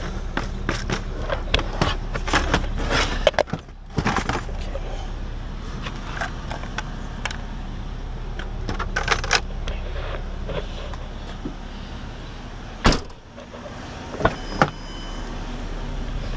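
Irregular clicks and knocks of things being handled around a car's open cargo area, with one louder knock about two-thirds of the way through, over a steady low hum.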